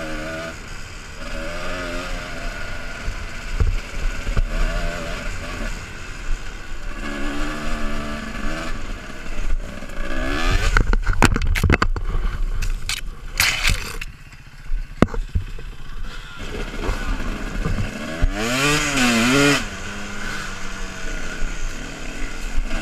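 Dirt bike engine heard from the rider's helmet, revving up and down along a trail. About ten seconds in comes a burst of clattering and scraping as the bike goes down, the engine drops low for a couple of seconds, then is revved up and down a few times and runs on steadily near the end.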